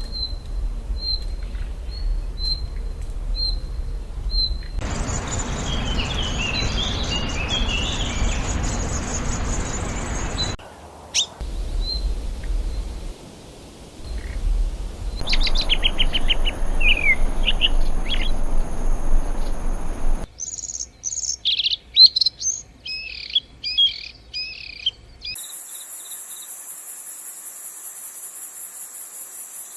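Birds chirping and singing in a series of different recordings cut together: first a short high note repeated about once a second, then clusters of chirps over a steady hiss, and near the end a very high, fast pulsing trill.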